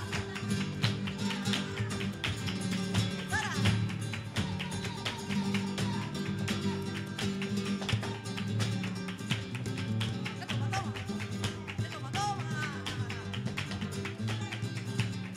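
Flamenco band playing: plucked guitar over a dense run of sharp percussive strikes, with a couple of short sung phrases, about three seconds in and again near twelve seconds.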